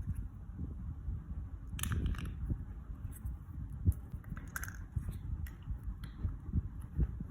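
Plastic Lego bricks being handled: irregular small clicks and taps of pieces knocking and snapping together, over a low rumble.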